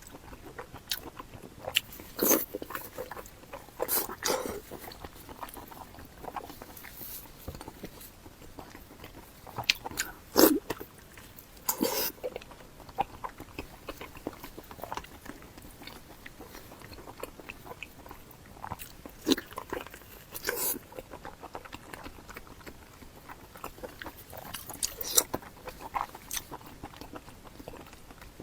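Close-miked eating: bites and chewing with sharp crunches and mouth clicks every few seconds, the loudest around two, four, ten, twelve, nineteen, twenty and twenty-five seconds in.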